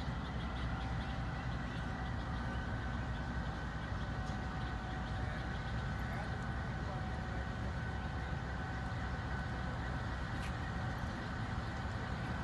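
Diesel-electric locomotive engine running steadily at low power, a constant low hum with a thin steady whine above it.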